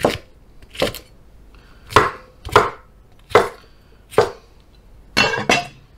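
Cleaver chopping smashed cucumbers into large chunks on a wooden cutting board: about seven sharp knocks of the blade through the cucumber onto the wood, roughly a second apart, with a quick pair of knocks near the end.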